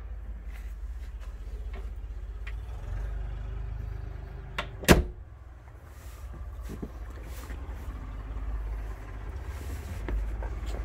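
Low steady rumble of handling noise and wind on a handheld microphone, with one sharp knock about five seconds in, just after a fainter click.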